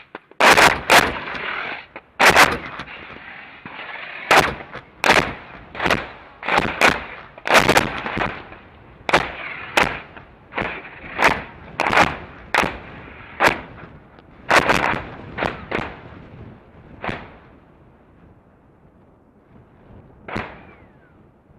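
CBU-105 cluster bomb submunitions detonating over tank targets: a rapid, irregular series of about two dozen sharp blasts over a steady rushing noise, the early ones loudest. They thin out after about 16 seconds, with one last blast near the end.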